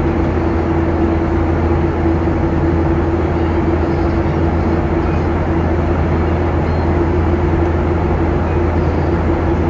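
Cabin noise of a Boeing 737-800 in flight, heard from a window seat over the wing: the steady drone of the CFM56-7B turbofan engines and the rush of airflow, with a constant hum.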